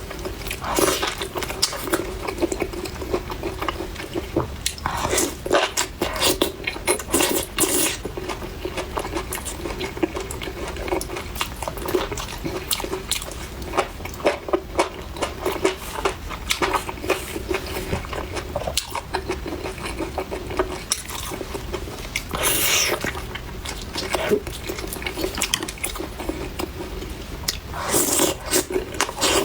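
Close-miked chewing and biting of spicy chicken: wet mouth sounds with crisp crunches coming in irregular bursts, over a steady low hum.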